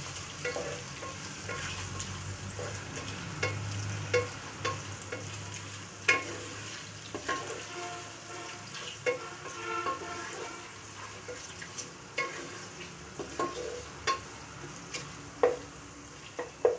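Sliced onions and green chillies sizzling steadily in hot oil in a nonstick pot, stirred with a spatula that scrapes and knocks against the pan at irregular intervals.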